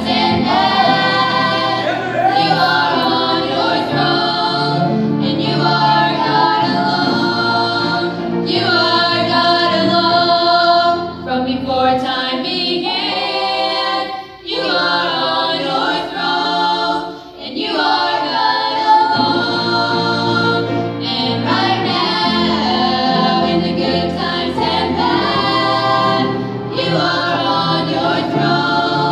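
Several voices, a boy's and women's, singing a song together in harmony through microphones and a PA loudspeaker, over a low held keyboard accompaniment. A few short gaps fall between phrases midway through.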